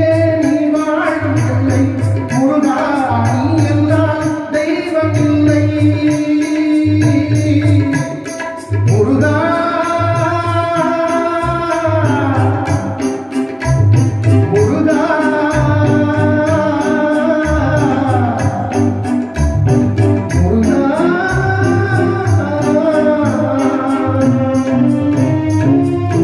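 A man singing a Tamil devotional song to Murugan in long, drawn-out phrases into a microphone, over a steady drum beat.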